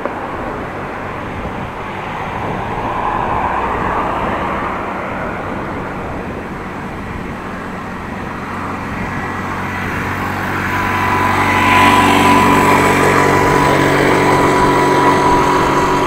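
Wind and tyre noise from riding a bicycle, joined about ten seconds in by the steady whine of an electric bike's assist motor that grows louder and holds an even pitch, the motor pulling at its maximum assistance.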